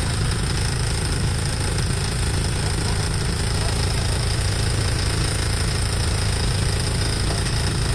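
Fishing boat's engine running steadily, a low, fast-pulsing rumble.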